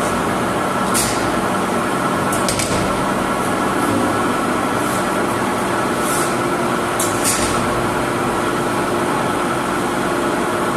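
3B12 cylindrical grinding machine running: a steady machine hum with several held tones, and a few short hisses at irregular intervals.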